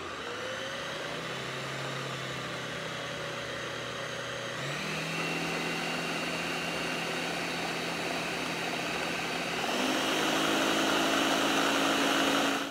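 Countertop blender pureeing boiled potatoes with their cooking water. The motor runs steadily, steps up in speed and loudness twice, about a third of the way in and again near the end, then cuts off abruptly.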